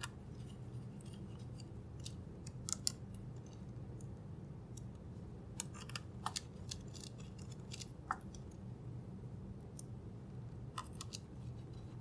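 Scattered light clicks and ticks of a small screwdriver and screws being worked into a keyboard's bottom plate, irregularly spaced, over a steady low hum.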